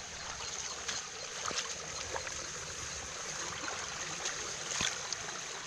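Water trickling and flowing, with a steady high hiss underneath and a few short splashes or knocks scattered through it, the strongest near the end.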